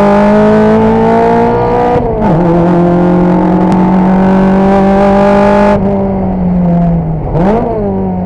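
Toyota 4A-GE 16-valve inline-four on individual throttle bodies, pulling hard with its pitch climbing steadily under full throttle, dropping sharply at an upshift about two seconds in and climbing again. Near six seconds it goes quieter as the throttle lifts, then revs up and down quickly around seven and a half seconds in, a throttle blip on a downshift.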